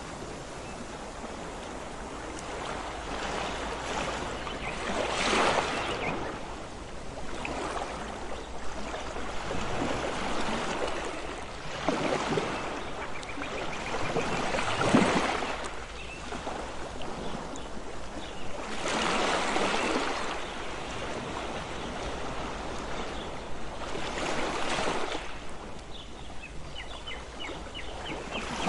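Waves breaking and washing on a beach, a steady rush that swells into louder surges every few seconds.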